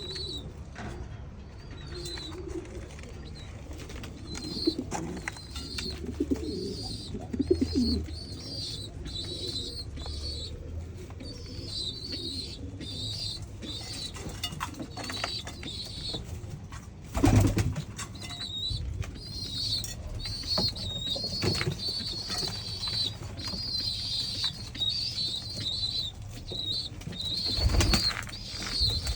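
Pigeons cooing, with short high chirps repeating throughout. Two short, louder bursts of noise come about halfway through and again near the end.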